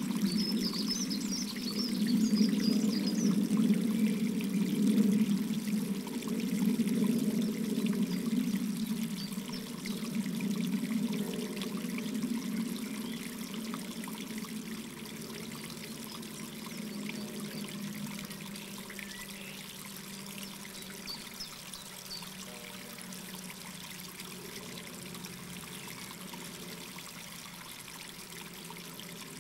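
Running water, like a trickling stream, heard as a steady wash that fades gradually through the second half.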